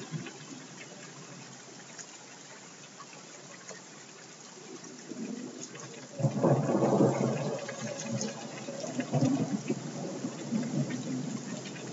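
Electronic noise jam mixed to sound like a thunderstorm: a steady rain-like hiss with scattered crackles, then a loud low rumble that swells in about six seconds in, like thunder, and slowly eases.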